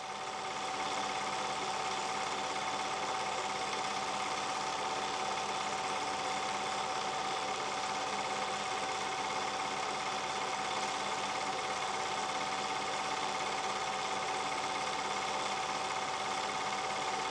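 Film projector running: a steady mechanical whir and clatter with a constant whine, coming up over the first second, as the Super 8 reel is played.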